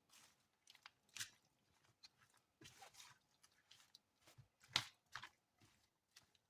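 Chunked raw chicken being mixed with dry seasonings: faint, irregular soft squishing and scraping, with a sharper one a little under five seconds in.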